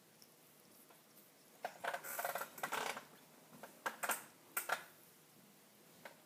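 Typing on a computer keyboard: a quick run of keystrokes about two seconds in, then a few separate key clicks.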